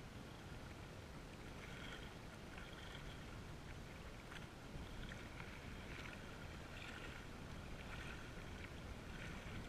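Steady wind buffeting the microphone while small wind-driven waves lap against the rocky shore, with soft splashes recurring about once a second.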